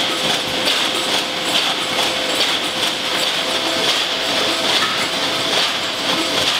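Belt conveyor running with empty metal aerosol can bodies, the cans clinking and rattling against each other and the guide rails over steady machine noise. A faint hum in the background shifts slightly higher about three seconds in.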